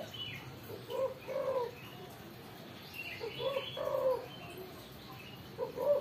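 Spotted dove (tekukur) cooing in three short bursts of notes a couple of seconds apart. It is a challenge call at a rival dove set facing it.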